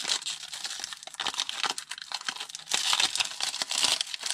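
Foil wrapper of a Pokémon TCG booster pack crinkling and tearing as it is opened by hand.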